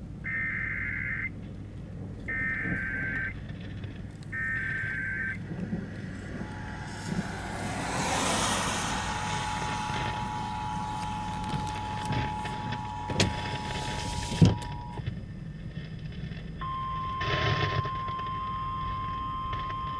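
Emergency Alert System tones for a tornado warning. Three short warbling data bursts about a second apart, then the two-tone attention signal held for about eight seconds over a hiss, with two sharp knocks near its end. Then a single steady alert tone a little higher in pitch.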